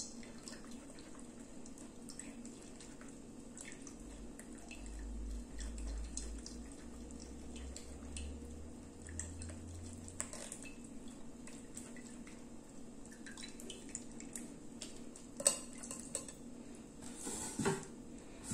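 Spatula scraping and pressing passion fruit pulp through a metal mesh sieve, with light ticks and scrapes of metal and glass and drips of juice. A sharper knock about fifteen seconds in and a short clatter near the end.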